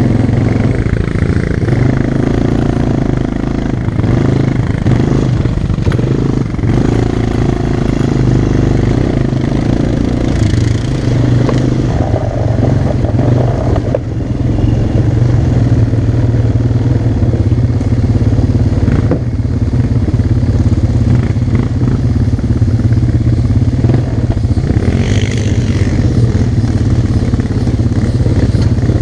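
ATV engine running steadily under way on a dirt trail, its note rising and falling a little with the throttle and dipping briefly about halfway through.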